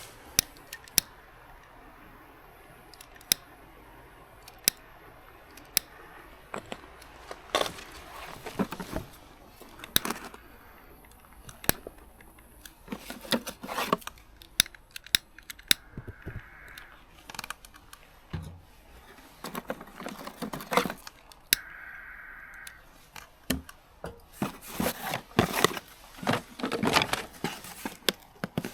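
Irregular clicks, taps and rustling from objects being handled, with crinkling and tearing of packaging. The clatter grows busier near the end.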